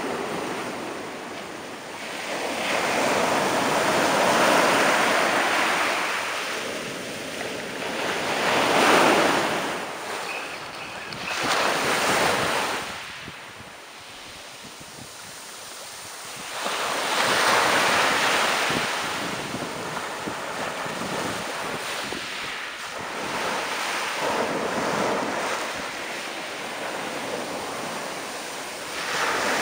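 Surf breaking and washing up a dark shingle beach, a rushing wash that swells and fades every few seconds as each wave comes in.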